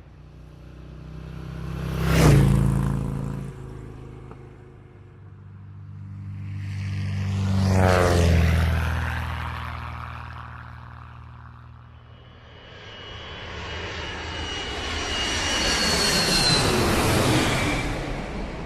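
Aircraft fly-by sound effects, three passes in a row, each rising to a peak and fading away. The first, about two seconds in, is short and sharp; the second, around eight seconds, sweeps down in pitch as it passes; the third, near the end, is longer, with high whining tones falling as it goes by.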